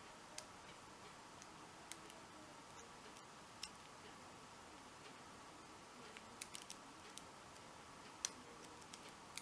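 Faint, sparse metallic clicks of a lock pick and tension wrench working the pin stack of a 40 mm Abus My Sport padlock during single pin picking: a few single clicks, then a quick run of clicks about six seconds in.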